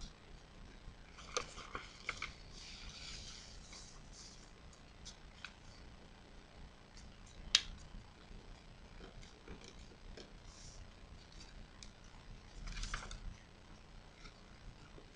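A square of origami paper being handled and folded by hand: faint rustling and crinkling as the sheet is shifted and creased, with scattered small clicks and one sharper tap about halfway through.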